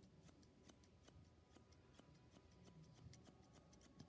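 Thinning shears snipping quickly and repeatedly through a smooth fox terrier's coat, faint, thinning the neck hair so it lies flatter.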